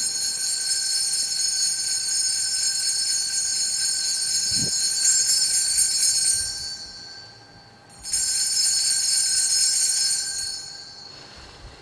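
Altar bells shaken in a long continuous ring at the elevation of the host, fading out after about six seconds, then ringing again for about three seconds as the priest bows.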